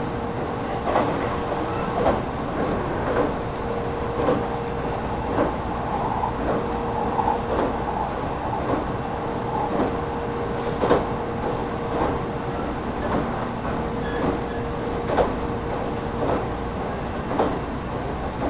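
Inside a JR Central 313 series electric train's motor car, running at a steady speed: the wheels knock over rail joints about once a second, over a steady hum.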